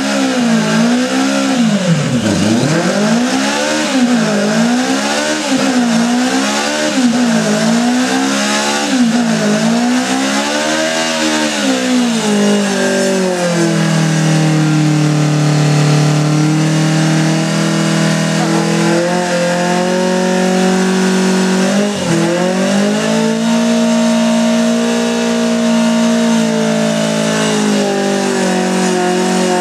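Yamaha motorcycle engine revving hard during a burnout, over the hiss of the spinning rear tire. For about the first twelve seconds the revs rise and fall about every second and a half. After that the engine is held at steady high revs, with one brief dip about two-thirds of the way through.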